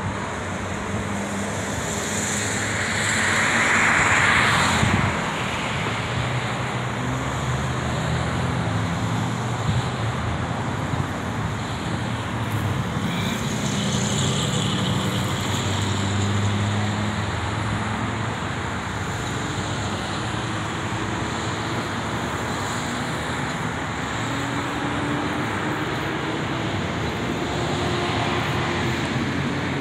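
Steady road traffic and motor vehicle engine noise with a low hum, swelling louder for a moment about four seconds in.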